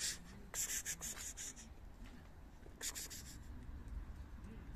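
Scratchy rustling and scraping in three short bursts, the longest about a second, as a paper plate of wet cat food is carried and set down on a concrete path.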